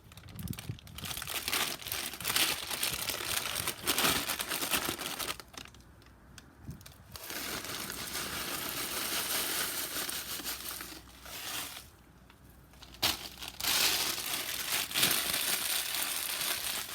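Plastic cereal-bag liner crinkling and rustling as it is handled, in three long stretches broken by short pauses about five and twelve seconds in.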